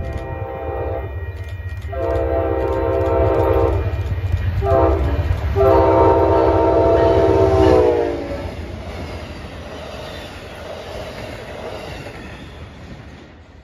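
Amtrak P42 diesel locomotive's horn sounding a long, long, short, long pattern as the train approaches at speed over a deep rumble. The last blast drops in pitch as the locomotive passes. The train noise then fades away.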